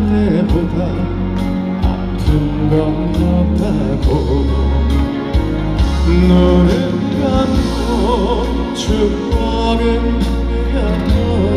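A man singing a slow ballad live into a handheld microphone, his voice wavering with vibrato, over amplified backing music with a steady beat.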